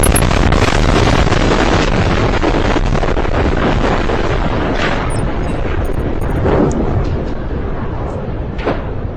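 A loud, steady rushing roar with a deep rumble, starting suddenly and easing a little toward the end: the explosion and fire of a crashing UPS cargo plane.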